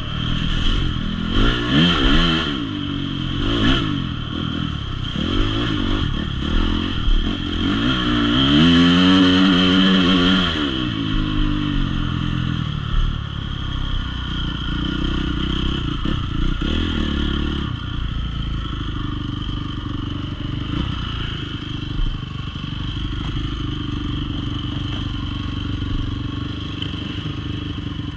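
Off-road enduro motorcycle engine revving in short throttle blips, then a longer, stronger rev about eight seconds in, after which it runs steadily at low revs.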